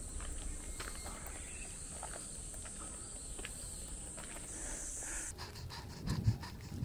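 Cicadas buzzing in a steady high drone. Near the end the drone drops out and a few footfalls on the leafy dirt trail take over, the loudest a thump about six seconds in.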